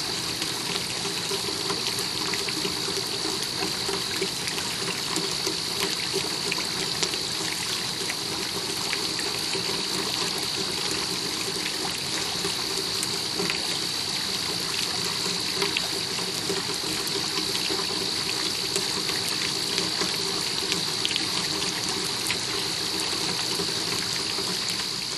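Pond fountain jet, about three feet high, spraying steadily and splashing back down into the pond water.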